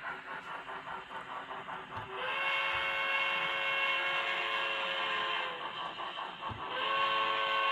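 N-scale steam locomotive DCC sound decoder playing rapid, even exhaust chuffing, then a long multi-tone chime whistle blast about two seconds in lasting some three seconds, and a second whistle blast starting near the end.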